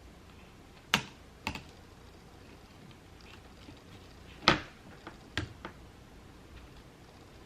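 A handful of sharp plastic clicks and clacks from mechanical keyboard parts being handled during assembly, the loudest about a second in and about four and a half seconds in.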